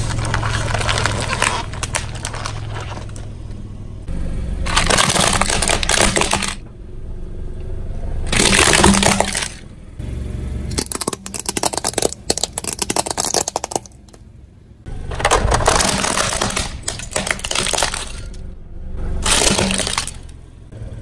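Objects being crushed under a slowly rolling car tyre: crinkling foil wrappers and plastic cracking and snapping. There are several separate crushing bursts with short gaps between them, including a run of rapid sharp cracks about eleven to thirteen seconds in.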